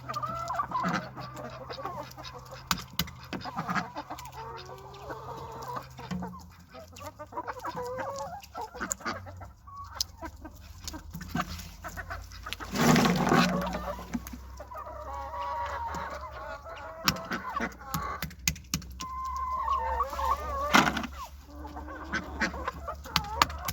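A flock of chickens clucking and calling, with many short wavering calls and scattered sharp clicks, and one louder burst about halfway through.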